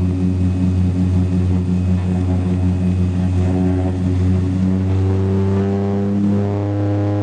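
A propeller plane's engines running at take-off power with a steady, loud drone; the pitch rises slightly about two thirds of the way through.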